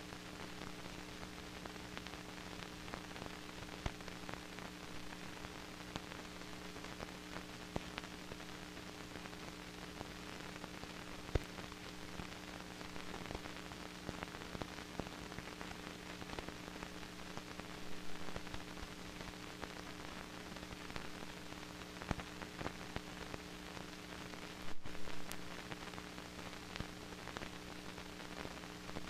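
Steady hiss with a constant hum and scattered clicks and crackles, the noise of an old film soundtrack. A few crackles stand out, about 18 and 25 seconds in.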